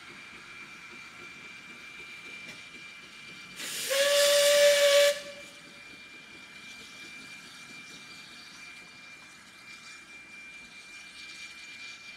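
Bagnall saddle tank steam locomotive sounding its whistle once: a sudden rush of steam hiss, then a short single-pitch blast of about a second that cuts off.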